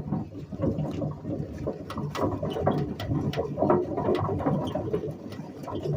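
Radio Flyer wagon rolling over rough ground: a steady rumble from the wheels with frequent irregular rattles and clicks from the wagon body.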